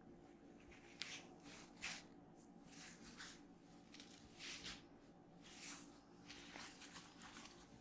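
Faint rubbing and soft squishing of hands working oiled skin and hair in a head and neck massage, in a handful of short swishes, the strongest two near the start.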